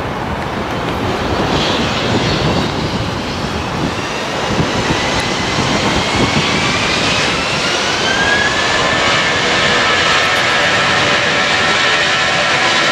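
Jet airliner's engines: a loud rushing roar with a whine that rises in pitch about six seconds in and then holds steady, as the engines spool up.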